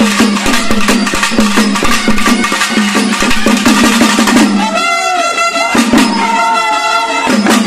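Shinkari melam: chenda drums beaten with sticks in a fast, dense run of strokes. From a little past halfway until near the end, a brass horn plays long wavering notes over the drumming.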